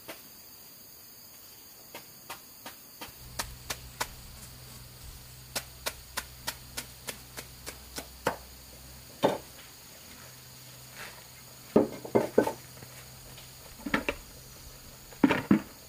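A run of sharp ticks and clicks, with heavier knocks in small clusters, the loudest around the middle and just before the end. A faint low hum joins a few seconds in.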